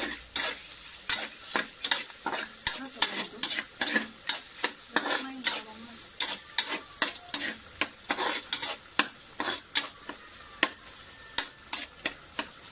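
A metal spatula scraping and clacking against a metal frying pan in quick, irregular strokes, about two to three a second, as pork, onion and garlic are sautéed. A steady sizzle of the frying runs underneath.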